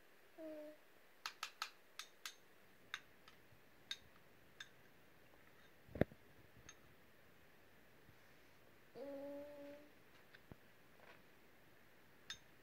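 An 8-month-old baby humming a short 'mmm' just after the start and a longer one about nine seconds in, while eating from a spoon, with a run of small sharp clicks and mouth smacks and one louder knock about six seconds in.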